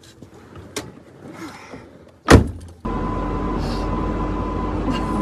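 A few faint clicks, then a single loud thump a little over two seconds in, like a car door shutting. Under a second later a steady car running noise with a deep rumble and a faint steady hum starts abruptly and holds.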